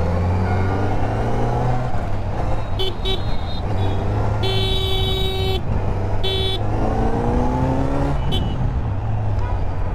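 Kawasaki Z900's 948 cc inline-four engine running under way, its pitch rising as it accelerates about seven seconds in. A vehicle horn sounds: short toots about three seconds in, a longer blast near the middle, and another short one just after.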